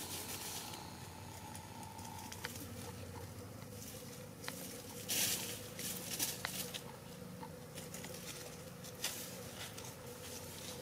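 Bantam chickens scratching and pecking in dry leaf litter: scattered rustles and light ticks, a little busier about five to six seconds in, over a faint steady hum.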